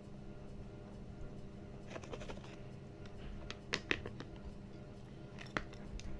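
A parrot eating, its beak making scattered clicks and taps in small clusters, the sharpest a little past the middle, over a steady low hum.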